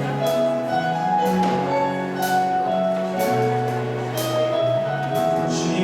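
Praise band playing the instrumental introduction to a worship song: sustained keyboard chords changing every second or so, with regular drum and cymbal hits.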